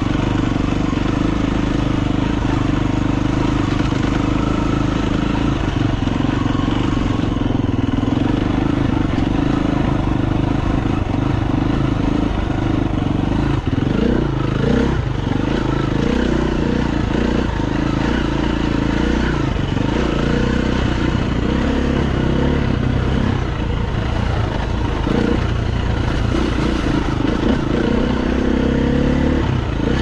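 KTM dirt bike engine running continuously as the bike is ridden along singletrack, its pitch rising and falling with the throttle. The engine note is most uneven a little before the middle.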